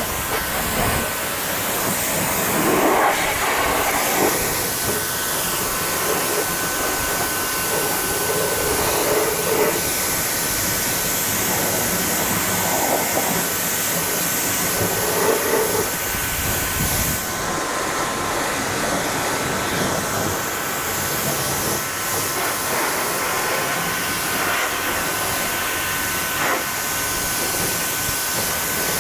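Pressure washer spraying a high-pressure jet of water onto a tractor's tyre and metal frame, a steady hiss of spray with a faint steady whine under it. The spray sound changes as the jet moves between surfaces.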